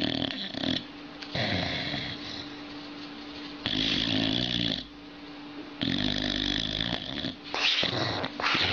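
Sleeping boxer dog snoring, with a loud snore about every two seconds.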